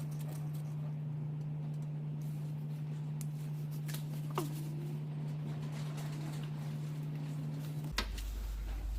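Faint clicks and handling noises from hands working on wiring, over a steady low hum that drops to a deeper hum about eight seconds in.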